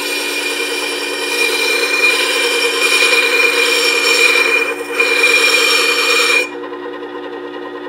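A bench sharpener's spinning abrasive disc grinding the steel chip breaker of a hand plane, a loud steady grinding over the motor's hum that eases briefly just before five seconds in. The grinding stops about six and a half seconds in while the motor keeps running. The grinding is rounding the chip breaker's front edge.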